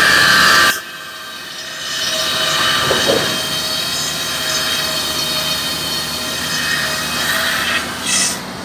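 Large breast-bench circular saw ripping a long timber board for decking: a loud, steady whining cut with several held tones. It opens with a louder, shriller burst that drops off in under a second, and a brief sharp high sound comes near the end.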